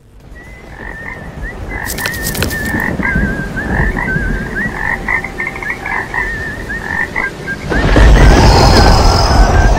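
Swamp ambience of frogs croaking, with wavering high chirping calls over a building rumble; about eight seconds in a loud low swell comes in.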